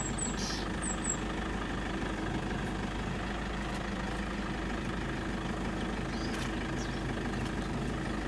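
Game-drive vehicle's engine idling steadily, with a few short high chirps about a second in.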